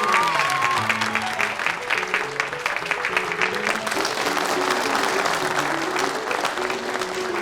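A crowd applauding with dense, steady clapping, a cheer or whoop trailing off in the first half second. A plucked-guitar music bed plays underneath.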